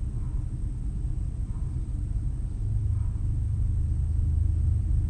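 A low, steady rumble that grows a little stronger about halfway through.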